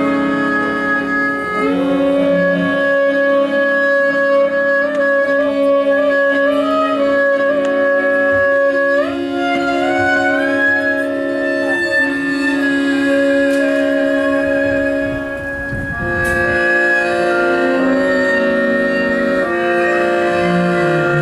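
Live instrumental music from a small band playing a slow piece: a melody of long held notes over sustained lower notes, sliding upward about nine seconds in, then a wavering, vibrato-like note around the middle.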